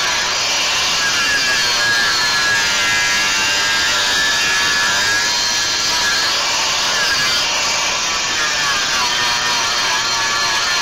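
Power tool grinding or cutting the steel of a truck frame rivet, a steady loud noise with a whine that drifts up and down as the load changes.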